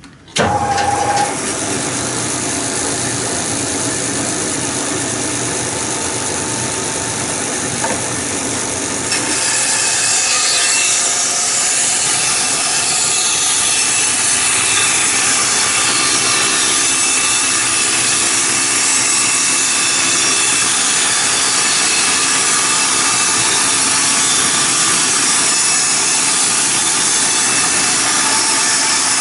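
Bandsaw starting up and running steadily, then about nine seconds in its freshly hand-sharpened blade begins cutting, louder and brighter. The cut has a slightly odd noise that the owner puts down to uneven sharpening of the teeth.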